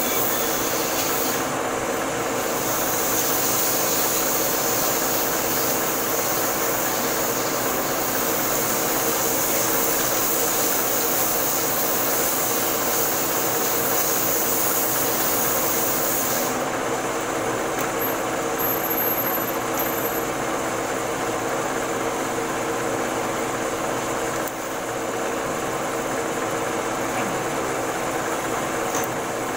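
Metal lathe running, its chuck spinning a large round steel workpiece: a steady machine hum with a high hiss over it that cuts off suddenly about halfway through.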